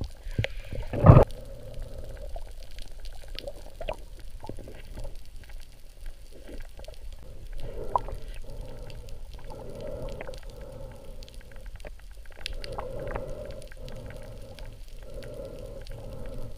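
Underwater noise heard through a GoPro's waterproof housing: a muffled rumble of water with scattered clicks and knocks, and one louder sharp knock about a second in.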